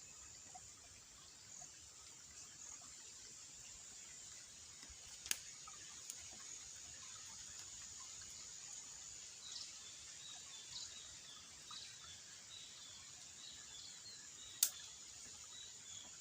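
Faint outdoor ambience: a steady high-pitched insect drone, with a run of short, quick chirps joining in past the middle, and two sharp clicks about nine seconds apart.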